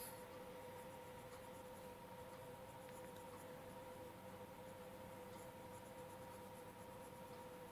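Faint scratching of a colored pencil shading on paper, over a steady faint hum.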